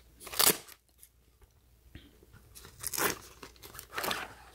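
Velcro flap of a fabric pouch ripped open, one sharp tear about half a second in and the loudest sound, followed by rustling and crinkling of fabric and plastic as a plastic-wrapped phone case is pulled out of the pouch.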